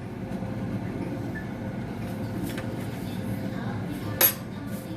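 A steady low rumble, with one sharp metallic clank about four seconds in as the lid goes back onto the cooking pot.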